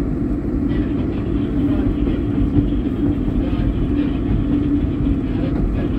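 SEPTA Market-Frankford Line ADtranz M4 subway train running at speed, heard from inside the car: a steady rumble with a low hum.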